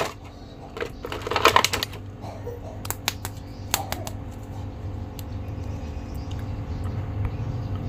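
Hard plastic toy packaging and plastic action figures being handled: scattered clicks and crackles, most of them in the first half, over a low steady hum.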